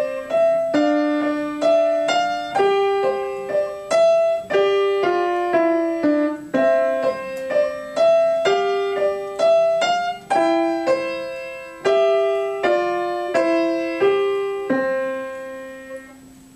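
Upright piano being played: a slow piece of melody notes over chords, a new note or chord every half second to a second. It ends on a held chord that dies away near the end.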